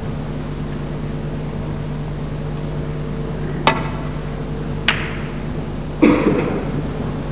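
Snooker break-off: a sharp click as the cue strikes the cue ball, and about a second later a second click as the cue ball meets the pack of reds. Near the end a louder knock with a short ringing tail. A steady hum runs underneath.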